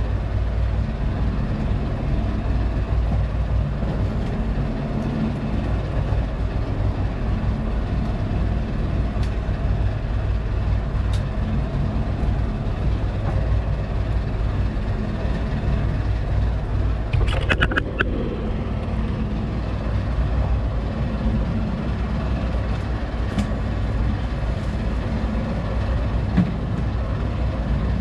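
Small fishing boat's engine running steadily with a low hum. A brief rattle of a few quick knocks comes about two-thirds of the way through.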